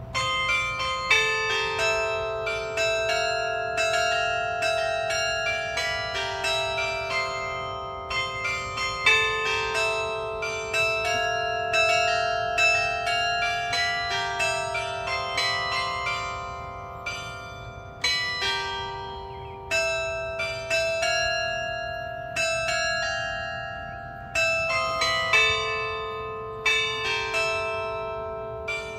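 Carillon bells of the New Ulm Glockenspiel clock tower playing a tune: one to two notes struck a second, each left ringing into the next, with a few louder strikes.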